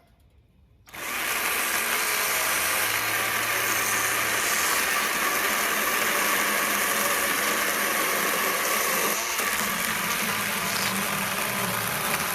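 Milwaukee M12 Hatchet battery pruning saw starting about a second in and cutting steadily through a cherry log, easing briefly about nine seconds in.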